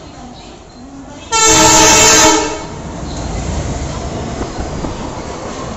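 Indian Railways locomotive horn giving one loud blast about a second in, lasting about a second. It is followed by the steady rumble and wheel clatter of the passenger coaches running past.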